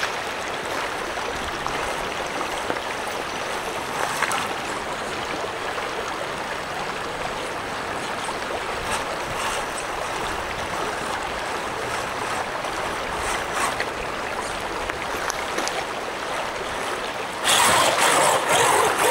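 Fast-moving creek water rushing steadily. Near the end a louder sound sets in over it.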